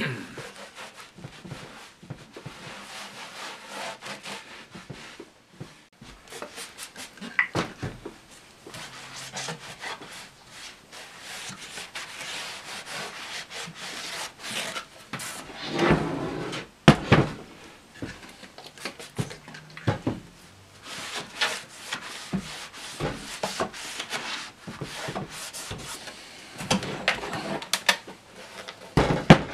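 A cloth rubbing and wiping over the tolex-covered wooden cabinet of a Marshall combo amp, with knocks and thumps from the cabinet being handled; the loudest pair of thumps comes a little past halfway, and more knocks near the end as the cabinet is moved.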